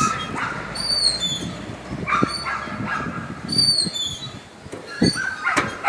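A dog barking a few times.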